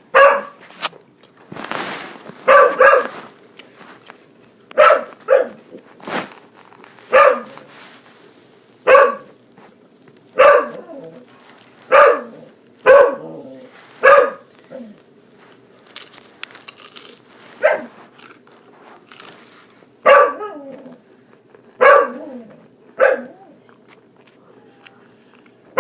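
A dog barking over and over, single short barks coming every one to two seconds.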